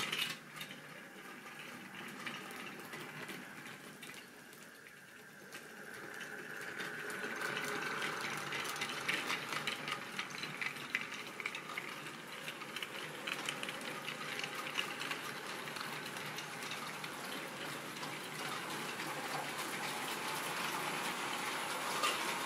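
Model railway goods train of mixed wagons running along the track, a steady rumble of wheels on rails that grows louder about six seconds in as it nears, with rapid clicking throughout.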